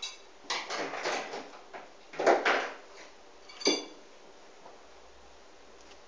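Three short bursts of rustling, clattering handling noise, the last a sharp clink about three and a half seconds in.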